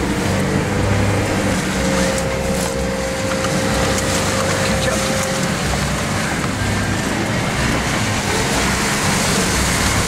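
Jeep Rubicon driving a rough, muddy off-road trail, heard from inside its cabin: the engine runs under a steady rumble of tyre and road noise, with a few faint knocks.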